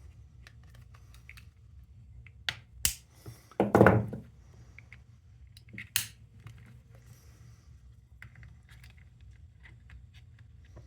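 Small clicks and taps of plastic and metal parts being handled as a torsion spring, pin and latch lever are worked into a J1772 charging connector's housing. A few sharper clicks stand out, with a louder handling noise about four seconds in.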